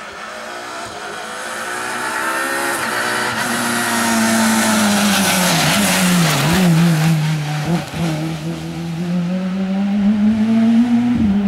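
Peugeot 206 rally car driven hard at racing speed, its engine growing louder as it approaches and passes close by. The engine note climbs, dips briefly twice near the middle, rises again, then cuts off suddenly at the end.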